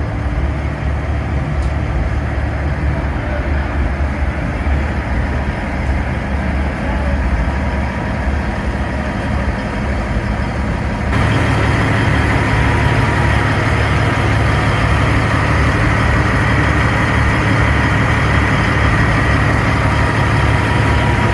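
Semi-truck diesel engine idling with a steady low rumble, growing louder about halfway through.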